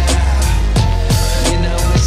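Background music with a steady drum beat and deep bass under held melody notes.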